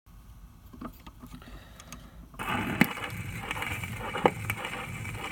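Faint crackle and clicks of a vinyl record's surface, then about two and a half seconds in a hiss of radio static from a space transmission begins, broken by an occasional sharp click.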